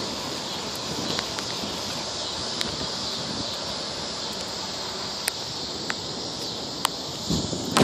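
Steady rush of wind and tyre noise from a bicycle rolling along a paved trail, heard from a smartphone on the handlebars, with scattered sharp clicks.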